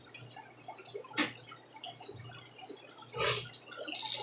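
Aquarium water trickling and dripping, with two short splashes, about a second in and a louder one near the end, as cichlids strike food at the surface.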